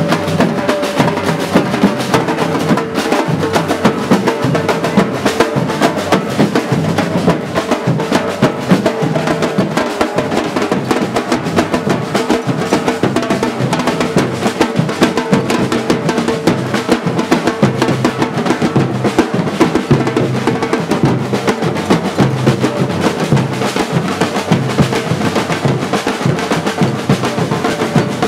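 Batucada samba percussion group drumming, bass drums and snare drums playing together in a dense, steady beat.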